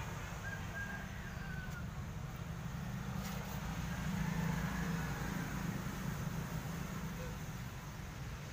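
Outdoor background noise: a steady low rumble that swells about four seconds in, with a faint thin whistle-like tone near the start and a couple of faint clicks.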